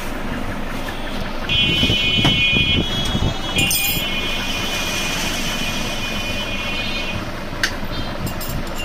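Road traffic noise with a high-pitched vehicle horn sounding twice, first for about a second, then for about three and a half seconds; a few sharp clicks near the end.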